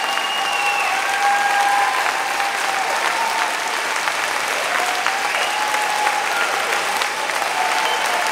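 Sustained audience applause, a dense steady clapping, with a few long high calls rising over it.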